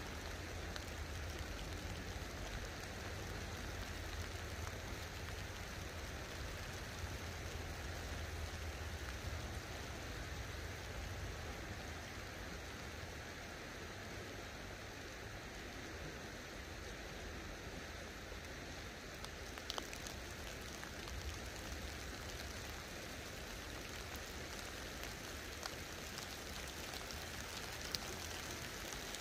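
Light rain falling on river water and the bank, a steady even hiss, with a few faint clicks about two-thirds of the way through and near the end.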